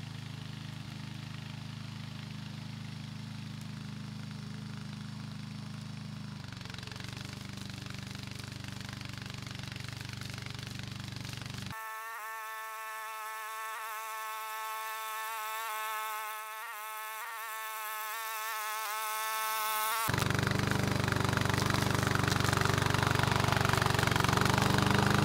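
Small engine of a remote-control tracked lawn mower running steadily as the mower climbs a grass hill carrying a seated rider. The tone shifts partway through and the sound grows louder over the last few seconds as the mower comes close.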